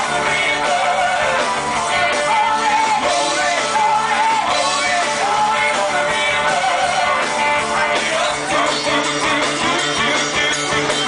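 Rock band playing live, with a voice singing over the instruments.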